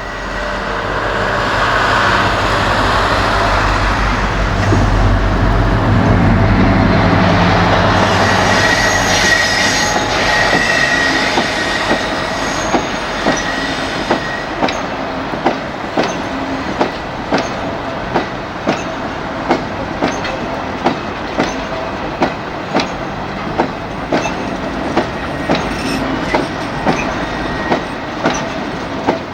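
A freight train hauled by a BR Class 60 diesel locomotive passes close by. The locomotive's engine swells to a heavy rumble over the first dozen seconds, then a long rake of wagons follows, its wheels clicking over rail joints about one and a half times a second.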